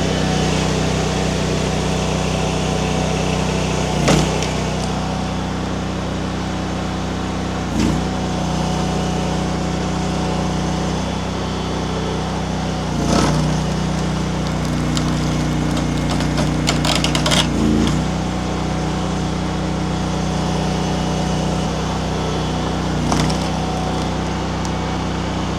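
Mini skid steer engine running steadily under hydraulic load as its splitter attachment drives a wedge through a tough, knotty pecan round, the engine pitch shifting as the load changes. Sharp knocks sound about every four to five seconds, five in all, with a short run of crackling about two-thirds of the way through.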